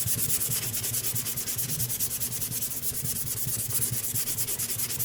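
Hand block sanding of cured body filler on a car panel with 180-grit paper: quick, even back-and-forth rasping strokes.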